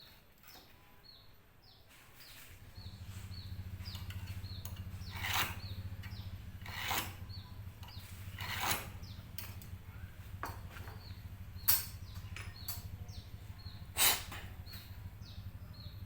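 Workshop sounds with birds chirping: a steady low hum comes in about three seconds in, and several separate knocks and scrapes of hand work on wood and metal parts sound over it, the sharpest two near the end.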